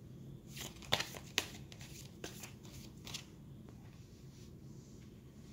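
Tarot cards handled and slid on a cloth-covered table: a few sharp taps and rustles about a second in, then quieter card scrapes.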